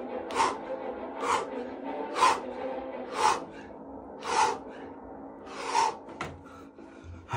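A man breathing out hard with each push-up, six sharp breaths about a second apart that space out a little toward the end, over faint background music.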